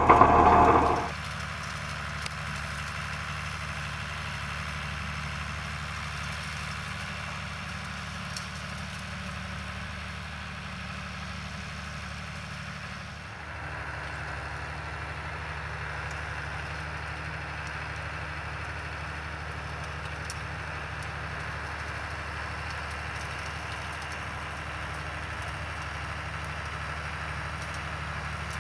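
John Deere 3050 tractor's diesel engine running steadily as it pulls a rotary hay rake across the field, after a loud burst of noise in the first second. About halfway through, the sound shifts and a faint steady whine joins the engine hum.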